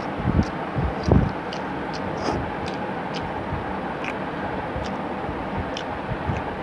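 A man chewing a mouthful of rice and curry, with soft mouth clicks and smacks, over a steady rushing background noise. A few soft low thumps come in the first second or so.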